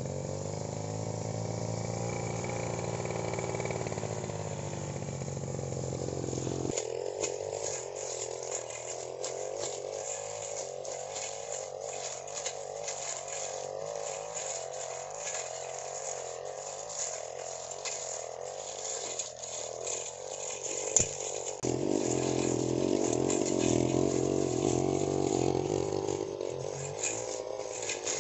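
Backpack brush cutter's small petrol engine running at cutting speed while its metal blade mows through grass and weeds. From about seven seconds in come many quick ticks and clatters of the blade striking stems and debris. The engine note rises and gets louder about two-thirds of the way through.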